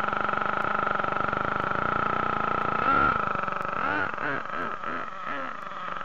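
Thunder Tiger MTA4 S28 nitro monster truck's small two-stroke glow engine running at a steady, high-pitched idle, then revving up and down in about five quick blips from about three seconds in as the truck drives off, growing fainter.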